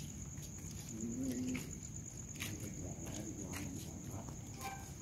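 Low cooing call, like a dove's, about a second in, with a fainter second coo around three seconds. A steady high-pitched whine and scattered small clicks run under it.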